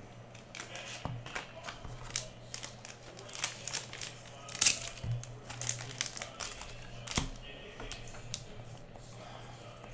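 Clear plastic card sleeve and holder crinkling and clicking as a trading card is handled, in irregular short bursts with a louder snap about four and a half seconds in.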